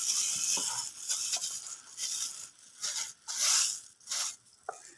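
Plastic rustling and scraping from handling a motorcycle charging-wire connector as a cover is worked over it. It is steady at first, then comes in a run of short, separate bursts.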